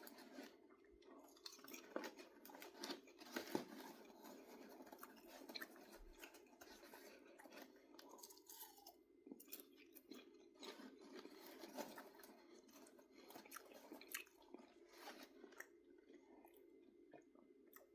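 A person chewing microwave popcorn: faint, irregular crunching, many small crunches at an uneven pace.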